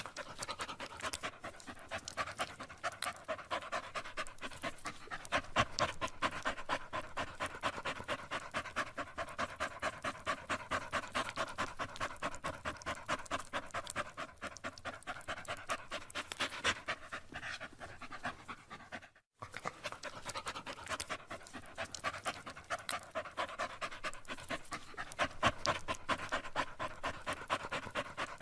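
A tired dog panting hard, in rapid, even breaths, pausing for a moment about two-thirds through.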